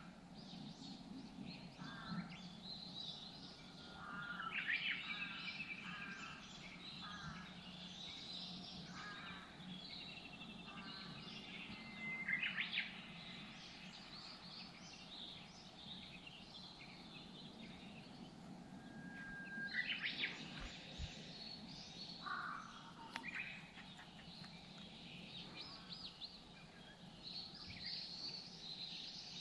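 Small birds singing faintly, with series of short repeated chirps and occasional trills, over a steady low hum.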